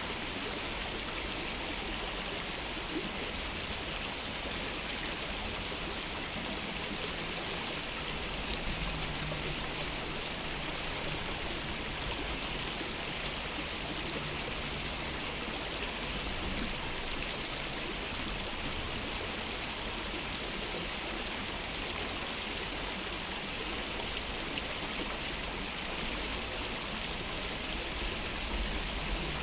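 Steady rushing and babbling of a small stream's flowing water, an even unbroken wash of sound.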